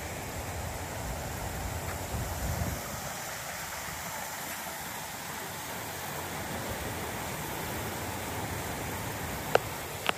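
Steady outdoor noise with wind rumbling on the microphone for the first few seconds, then two sharp clicks near the end.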